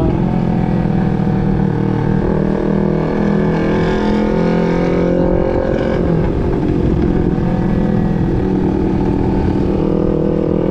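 250 cc parallel-twin sport motorcycle engine running under way, its pitch shifting about two seconds in as the engine speed changes, with wind noise throughout.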